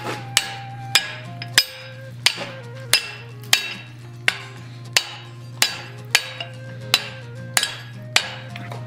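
Hand hammer striking a red-hot steel bar held in a bending fork on the anvil, bending the curve of a forged beak. The blows come at a steady pace of about one and a half a second, each ringing briefly, over a steady low hum.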